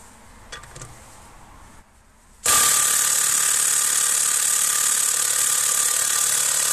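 Milwaukee impact wrench hammering steadily on a tractor wheel nut that hasn't been off in 20 years, starting abruptly about two and a half seconds in.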